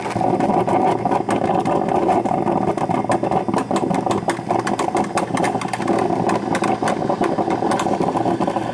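Black & Decker drip coffee maker brewing: a steady gurgling sputter with dense rapid crackling, typical of hot water bubbling up through the machine near the end of its brew cycle.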